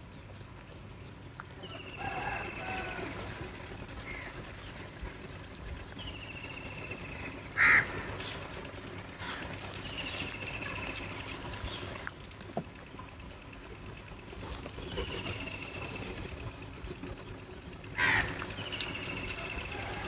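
House crows calling: two loud, harsh caws, one about eight seconds in and one near the end, with a thinner falling call repeating every few seconds between them.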